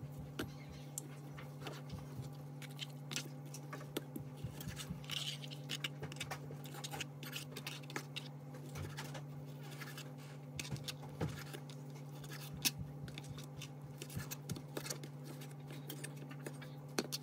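Kitchen knife slicing and dicing ham on a plastic cutting board: irregular light taps and scrapes as the blade meets the board. A steady low hum runs underneath.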